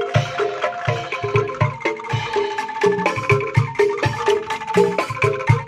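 Background music: a tune of short, quickly fading struck notes over a steady beat.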